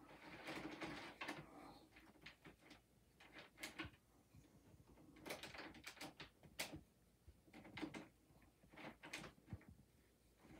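Faint, scattered clicks and light knocks of a small HO-scale model locomotive being handled and set on the track.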